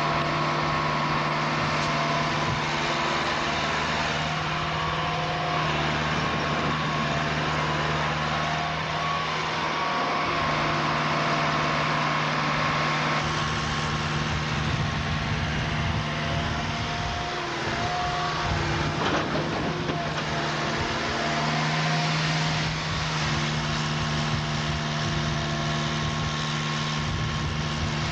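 Atlas hydraulic excavator's diesel engine running steadily under work, its pitch and load shifting now and then as the boom and beet grab move, with a noisier stretch about two-thirds of the way through.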